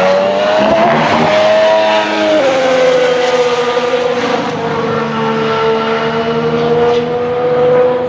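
Race car engine at high revs, from a Red Bull Formula One recording. Its pitch climbs in the first second, steps down about two and a half seconds in, then holds steady and slowly rises again.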